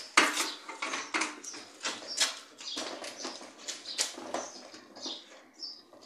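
Screwdriver driving a screw through a fridge condenser's metal mounting bracket into the sheet-metal cabinet: irregular metallic scraping and clicking, with a short squeak near the end.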